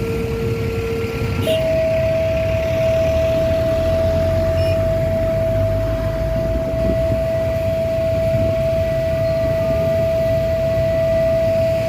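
Malfunctioning railway level-crossing warning siren sounding a steady single tone: a lower note that jumps to a higher one about a second and a half in, then holds unbroken. Engine rumble from traffic sits underneath.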